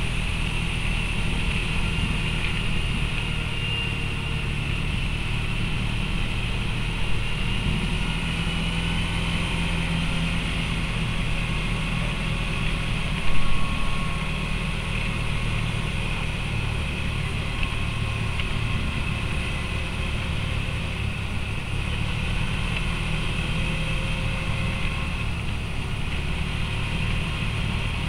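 ATV engine running steadily while riding along a paved road, with one short louder bump about halfway through.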